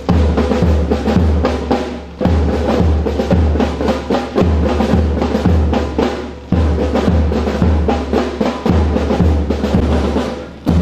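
Marching drums, bass drum and snare, beating a steady march rhythm that repeats about every two seconds, keeping time for the students' march past.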